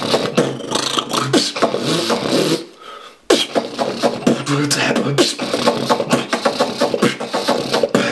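One man's solo vocal beatboxing: dense percussive mouth sounds, kick, snare and hi-hat imitations, over hummed pitched bass tones. It drops almost to silence for about half a second near the three-second mark, then comes back in suddenly at full level.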